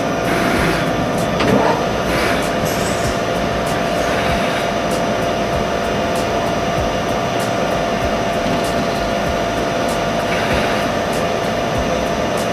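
Machine tool running steadily while milling off the face of a metal workpiece: a constant motor-and-spindle whirr carrying a few steady tones.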